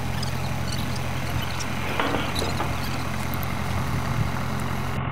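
Tractor engine idling with a steady low hum.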